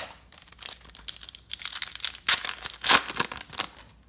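Wrapper of a Topps Star Wars Holocron trading card pack crinkling and tearing as the pack is pulled from the box and ripped open: a run of irregular sharp crackles, loudest in the second half.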